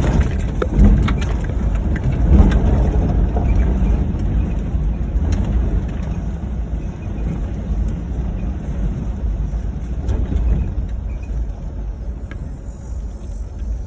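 Ford Crown Victoria driving over rough off-road ground: a steady low rumble of engine and tyres, with knocks and rattles as the car bounces, most of them in the first few seconds.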